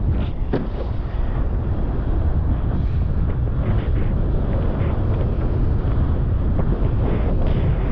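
Wind buffeting the microphone of a first-person camera on a wingfoiler: a steady, low, rumbling wind noise, with a few sharp taps about half a second in.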